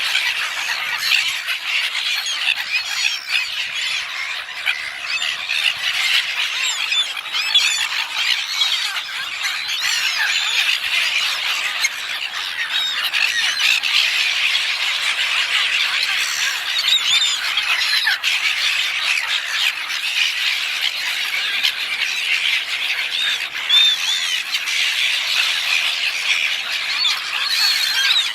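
A flock of gulls squawking and crying without pause, many calls overlapping, as they crowd in to be fed chips.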